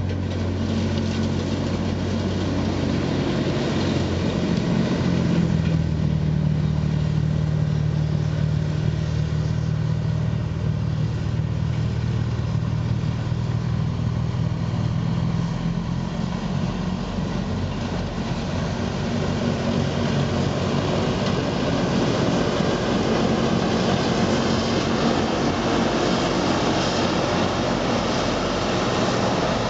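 Vohl VL-350 loader-mounted snow blower working, its 350 hp John Deere diesel engine running steadily under load and rising in pitch about five seconds in. Over the last ten seconds a broad rushing noise of the blower throwing snow grows over the engine as the machine comes close.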